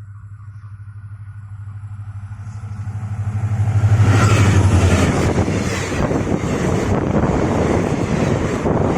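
Diesel locomotive passing at speed. Its low, pulsing engine hum builds to its loudest about four to five seconds in, then gives way to the loud rushing clatter of the train going by.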